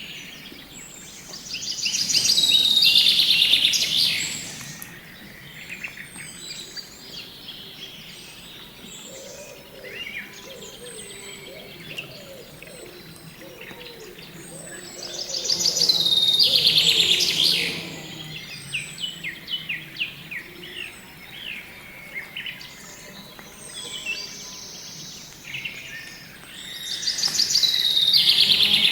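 Birds singing and calling: a loud, rapid trilling song phrase comes three times, roughly every twelve seconds, with quieter chirps and short high whistles in between.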